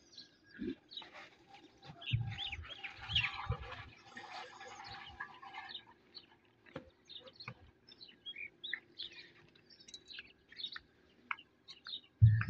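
Liquid poured from a plastic jerrycan into a metal drum, splashing and gurgling for a few seconds with a few low thuds. Small birds chirp throughout.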